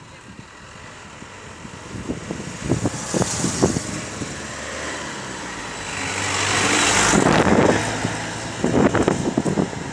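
A motor vehicle running nearby, rising to its loudest about seven seconds in and then easing off, with a few short soft knocks around three and nine seconds in.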